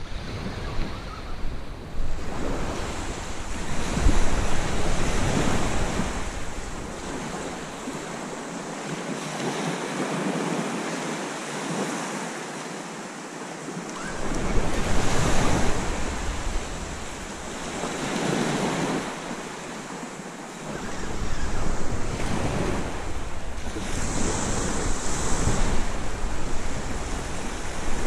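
Waves washing onto a beach, swelling and fading every few seconds, with wind rumbling on the microphone that drops away twice.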